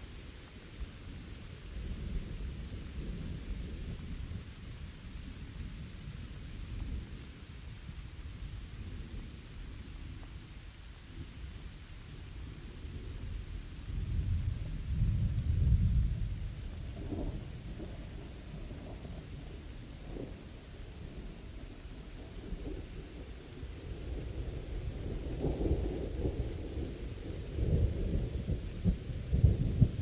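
Steady rain with rolling thunder. The low rumble swells about halfway through and builds again near the end.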